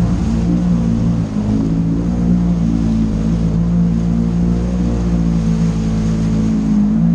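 Polaris RZR 900 side-by-side's engine running steadily under load, pitch rising and dipping slightly, as the machine drives through a deep trail puddle with water splashing and spraying around it.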